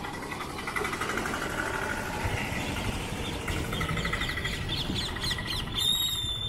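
Motor vehicle engine running with a steady low road rumble, while birds chirp in rapid repeated trills over it. Near the end a thin, high, steady whistling note sounds briefly.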